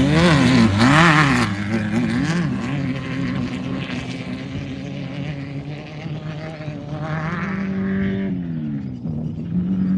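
Class 1600 desert race buggy's air-cooled Volkswagen four-cylinder engine running hard. Its revs swing up and down quickly several times over the first couple of seconds, then hold steady, climb again and fall away near the end.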